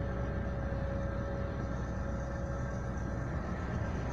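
Diesel engines of a Komatsu PW140 wheeled excavator working and a Tatra 815 dump truck running, a steady low rumble with a faint whine that fades out near the end.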